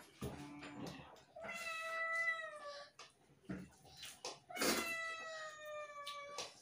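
A cat meowing twice: two long drawn-out meows, each about a second and a half, the pitch sagging slightly at the end. Short clicks and taps come in between.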